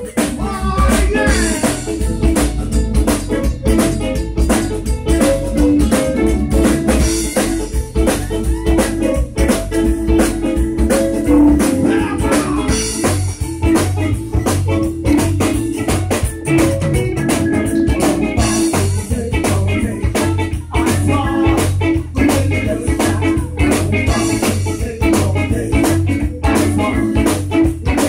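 Live zydeco band playing: diatonic button accordion, electric guitar, bass and drum kit with a steady beat.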